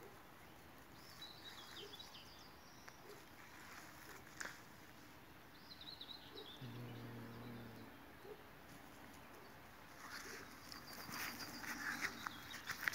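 Quiet outdoor ambience with faint bird chirps twice. A low steady drone comes in briefly midway. Near the end, scuffling and rustling on dirt and weeds as a cat paws at a mole and someone moves in close.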